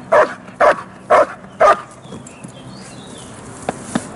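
A dog barking in a fast, steady run, four loud barks about half a second apart, which stop about two seconds in; this is a protection-training dog barking at the helper. Near the end come two sharp knocks.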